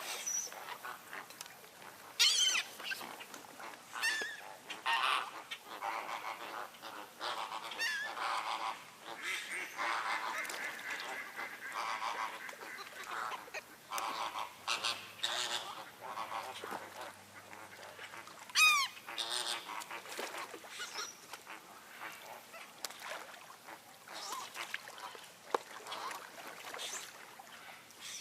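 Many birds calling over one another without pause, with a few sharp, falling whistled calls standing out, the loudest about two-thirds of the way in.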